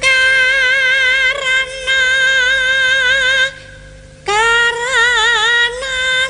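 A woman singing in Javanese sindhen style, holding long high notes with a wavering vibrato, in two phrases with a short break a little past halfway.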